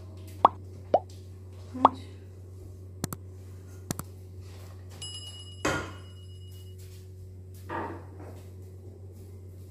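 Silicone spatula working thick cake batter in a saucepan: three sharp wet plops in the first two seconds, a few faint clicks, then a duller knock around the middle, over a low steady hum.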